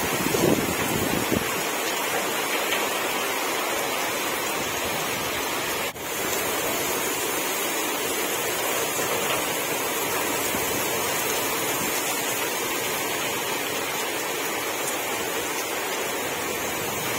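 Steady hiss of rushing water, with a brief drop about six seconds in.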